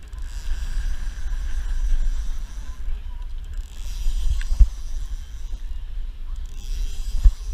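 Low wind rumble on the microphone and water hissing against a small boat at sea, with two sharp knocks, one about four and a half seconds in and one near the end.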